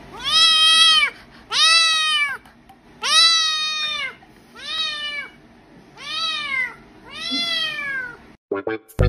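A kitten meowing six times in a row, each meow drawn out and arching up then down in pitch. A few short clicks come near the end.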